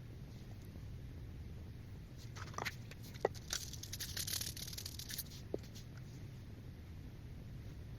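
Powdered cornstarch being poured: a soft, quiet powdery hiss lasting a couple of seconds in the middle, with a few faint squeaky ticks before and after it.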